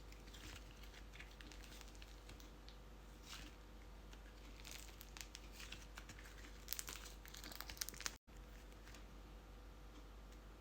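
Faint crinkling and crackling handling noises, scattered at first and densest from about five to eight seconds in, broken by a very short gap just after eight seconds.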